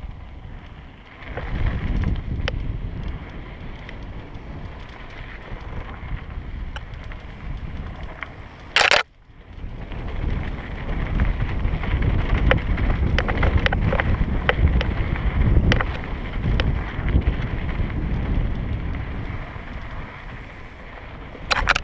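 Wind buffeting the microphone and tyres rolling and rattling over a dirt singletrack as a mountain bike is ridden, with scattered clicks and knocks from the bike. A sharp, loud burst of noise comes about nine seconds in and again near the end.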